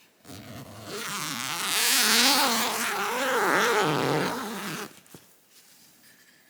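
A tent door zipper being pulled open in one long, uneven pull of about four and a half seconds. Its rattle rises and falls in pitch as the pull speeds up and slows, and it stops abruptly near the end.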